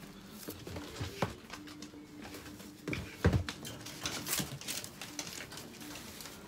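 Bare feet stepping and shuffling on a plastic tarp, crinkling, with scattered knocks and one heavy thump about three seconds in.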